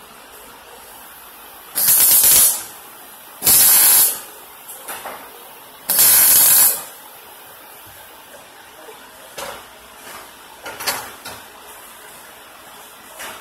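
MIG welder arc sizzling in three short bursts of under a second each: quick tack welds. A few light metallic clicks follow.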